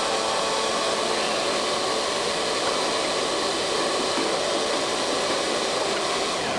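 Vacuum cleaner running steadily, a dense rushing noise with a faint steady whine in it, as it sucks dirt and debris out of a boat hull.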